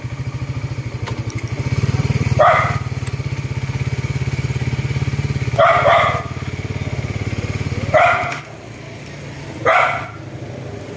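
Dogs barking in four short bouts, about five barks in all, one bout a quick double, during a standoff between two dogs. Under them a small engine idles with a steady low throb that cuts off about eight seconds in.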